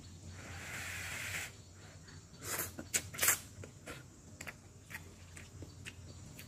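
Ramen noodles slurped into the mouth for about a second, followed by chewing with sharp mouth clicks and smacks, loudest about three seconds in, then lighter clicks.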